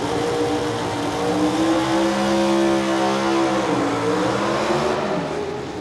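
Super Stock four-wheel-drive pulling truck's engine at high revs under load on the sled, then the revs fall away about four seconds in and the sound fades as the truck stops. The pull ends with a drivetrain failure, which the announcer puts down to a lost transfer case or possibly the transmission.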